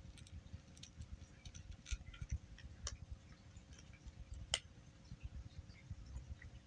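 Cat crunching dry kibble: irregular, faint crunches and clicks, with one sharper click about four and a half seconds in.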